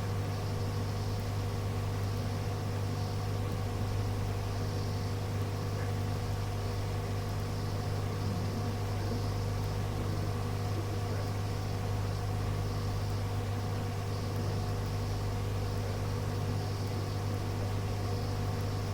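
Steady low electrical hum with hiss from a radio receiver recording, with no transmission coming through.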